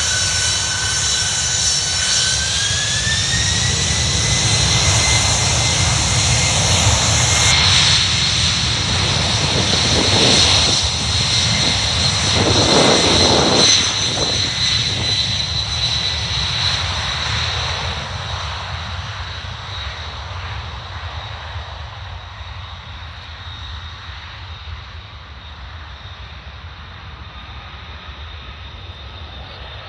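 Boeing 767 freighter's twin jet engines spooling up to takeoff thrust, their whine rising in pitch about two seconds in, then the loud engine noise of the takeoff roll. It peaks around the middle and fades steadily as the aircraft climbs away.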